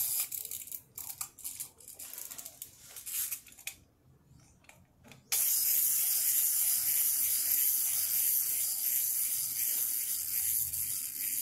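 A small plastic crawling-baby toy's motor and gears whir steadily as it crawls, starting suddenly about five seconds in. Before that come light clicks and knocks as plastic toys are handled and set down on a tile floor.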